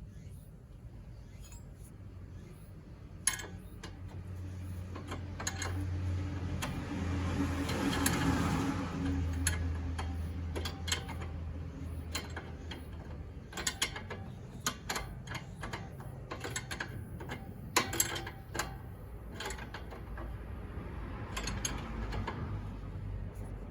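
Hand tools at work on a car's suspension during a stabilizer-link swap: ratchet clicking and metal clinks and knocks. A louder steady noise with a low hum swells and fades in the middle.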